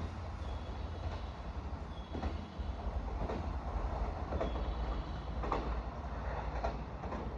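Train running along the track, a steady low rumble with the wheels clacking over rail joints about once a second.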